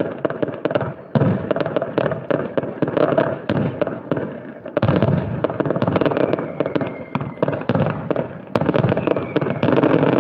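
Fireworks display: a dense, continuous run of crackling pops and bangs from bursting shells, with sudden louder bursts about a second in and again just under five seconds in.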